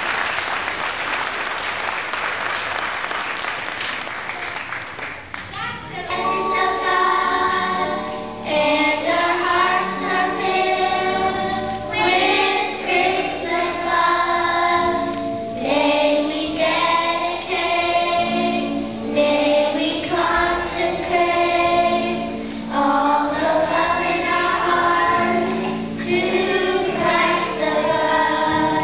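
Audience applause that fades out over the first few seconds. About six seconds in, a children's choir starts singing a song to a musical accompaniment.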